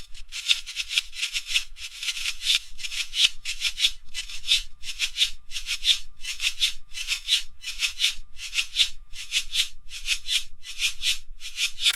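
Polystyrene packing peanuts rustling and crunching, shaken or stirred in a rhythmic series of crinkly bursts, about two a second.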